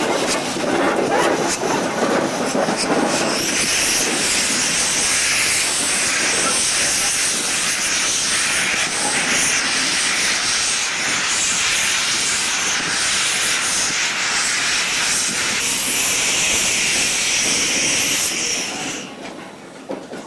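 Saddle-tank steam locomotive with its cylinder drain cocks open, blowing steam in a loud, steady hiss that starts about three seconds in and stops suddenly near the end. Before the hiss, there is a lower rumble of the locomotive rolling on the rails.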